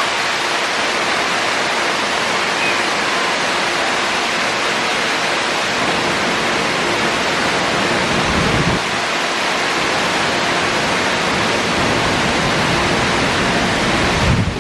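Artificial waterfall pouring down a tall rock face: a steady, even rush of falling water, with a brief low rumble about eight seconds in.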